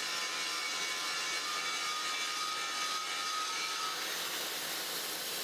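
Belt grinder running with a pattern-welded Damascus steel blade held against the belt, grinding the primary bevel into the edge: a steady grinding hiss with a faint whine.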